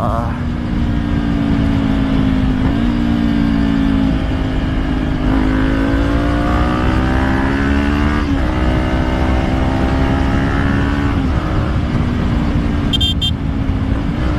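Kawasaki Ninja 400 parallel-twin engine running under way, recorded through a helmet-mounted mic, its note gliding and then jumping in pitch several times as gears change, over a steady low rumble. A brief high chirp sounds near the end.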